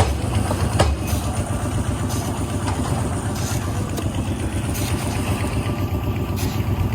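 Engine of construction machinery running steadily with a constant low rumble, and a single sharp knock about a second in.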